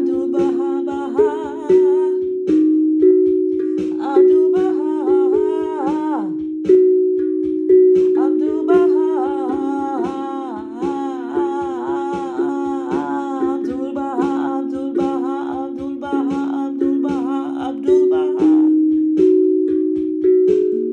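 Steel tongue drum struck with mallets, one note about every second, each ringing on under the next. A woman's wordless singing or humming rises over it twice, briefly about four seconds in and then for several seconds through the middle.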